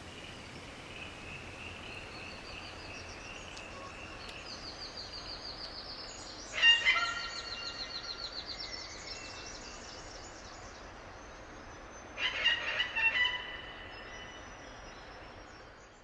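Tasmanian nativehens calling in two loud bursts of harsh, pulsed calls, one about six seconds in and another about twelve seconds in, over a fainter high trilling.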